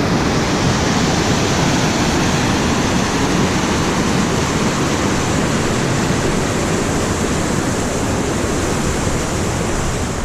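A mountain stream rushing close by: a loud, steady roar of running water.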